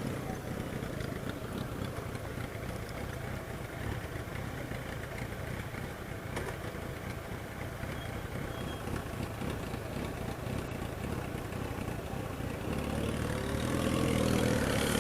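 Honda Twister 250 single-cylinder motorcycle engine running steadily at low revs, then rising in pitch and getting louder as it accelerates over the last couple of seconds.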